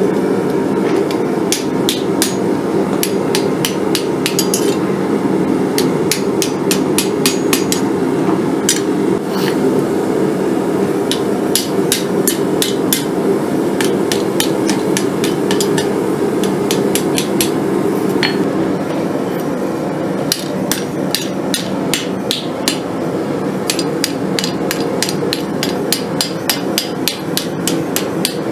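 Hand hammer striking red-hot 1/8-inch mild steel flat bar on an anvil, rolling a rose petal up tight: sharp metallic strikes in quick runs, with a lull about halfway through. A steady low noise sits underneath the hammering.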